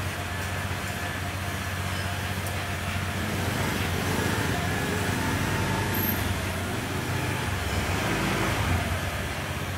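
Electric pet hair clippers buzzing steadily as they shave a pug's coat, over a continuous background rumble.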